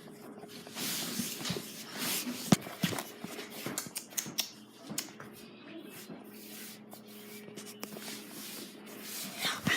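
Handling noise in a small room: scattered clicks, knocks and rustling over a faint steady hum, with one sharp click about two and a half seconds in.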